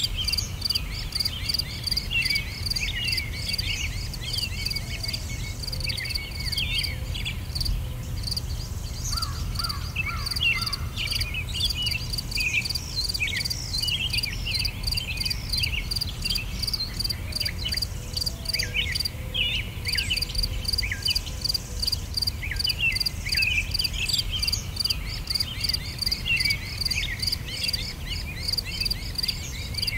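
Nature ambience: insects chirping in a steady, rapid pulse, with scattered short bird chirps and a low rumble underneath.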